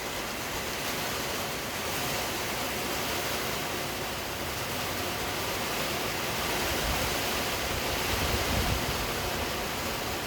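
Steady rush of rain falling, with gusty wind rumbling on the microphone and a stronger gust about eight seconds in.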